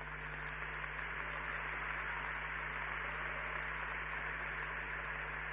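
Large crowd applauding, building over the first second or so, then steady.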